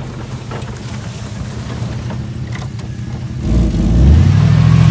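An old Oldsmobile sedan's engine runs on the dirt track, then revs up loudly about three and a half seconds in as the car accelerates close by.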